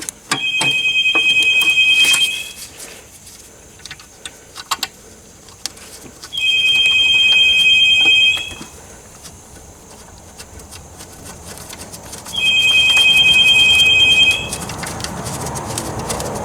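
Phone ringing: a trilling two-tone electronic ring about two seconds long, three times about six seconds apart. Light clicks and knocks sound between the rings.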